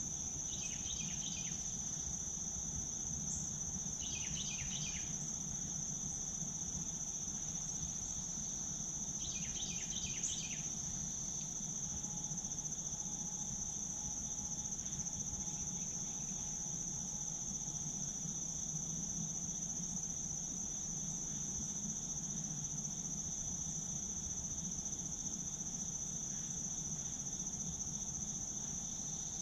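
Insect chorus, a steady high-pitched trill that does not let up. Three short clusters of chirps sound over it: near the start, about four seconds in, and about ten seconds in. A low, steady background rumble runs underneath.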